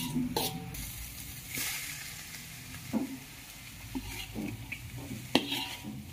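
Spatula stirring and tossing fried noodles in a hot wok: a steady sizzle, with scrapes and knocks of the spatula against the pan. A sharp knock about five seconds in is the loudest.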